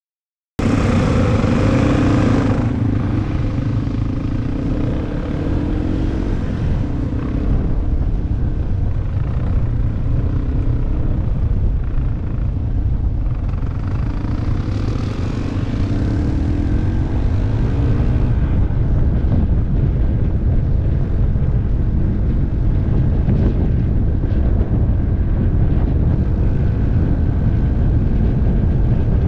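Yamaha off-road motorcycle engine running as the bike is ridden, its note rising and falling with the throttle, under a heavy wind rumble on the microphone. The sound starts abruptly about half a second in.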